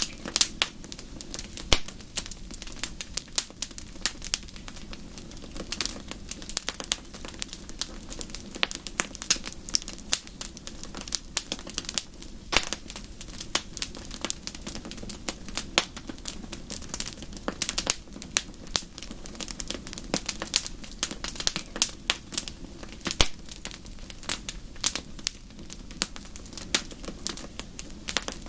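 Wood fire crackling in a fireplace: irregular sharp pops and snaps, many per second, over a steady low rumble of the flames.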